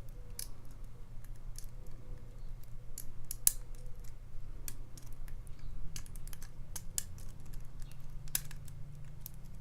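Lock pick and tension wrench working the pins of a pin-tumbler challenge padlock: irregular small metallic clicks and ticks as the pins are lifted and set.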